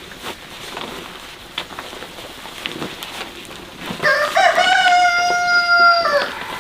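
A rooster crowing once, about four seconds in: one long call of about two seconds that drops in pitch as it ends.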